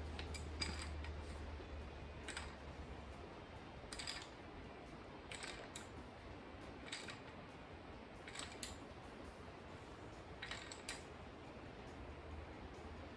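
Faint metallic clicks, single or in pairs about every second or so, as a wrench slowly turns the bolt that presses the lower timing gear onto an LS1 crankshaft. A low hum fades out about three seconds in.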